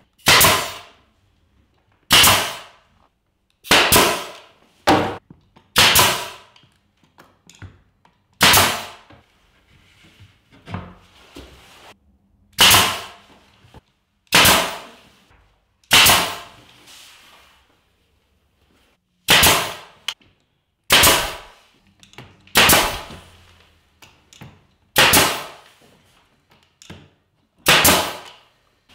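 Nail gun firing nails into wooden door casing: about fifteen sharp shots, one every second or two with a few longer pauses, each with a short fading tail.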